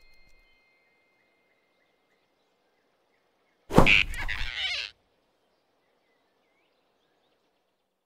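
A sudden loud snatching sound effect as the big cartoon rabbit grabs the flying squirrel in his fist, sharp at the start and dying away after about a second. It sits over faint forest ambience.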